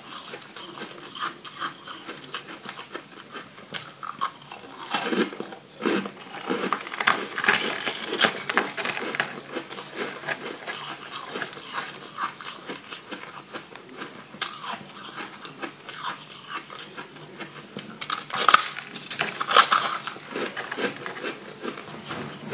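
Biting and crunching of a crumbly block of frozen sweet ice, with dense crackling as pieces are broken off and chewed. The loudest crunches come near the end.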